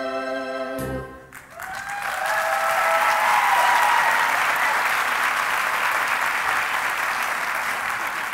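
A held final sung note with backing music ends with a low hit about a second in, then an audience breaks into applause and cheering that swells and carries on.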